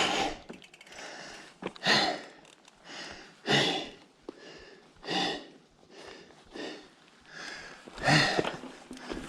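Heavy, laboured breathing of a mountain biker out of breath from repeated attempts at a climb, one loud breath about every one and a half seconds.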